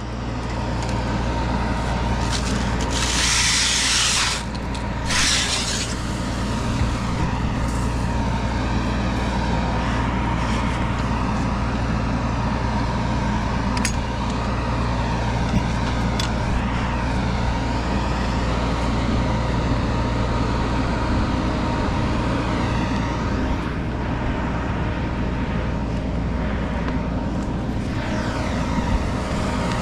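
An engine running steadily at a constant speed, with two short bursts of hiss about three and five seconds in.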